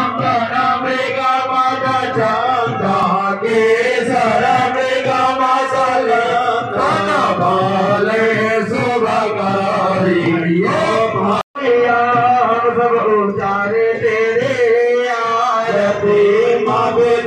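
Men singing a Hindu aarti hymn in a chanting style, the lead voice sung into a microphone. The sound cuts out for a split second about halfway through.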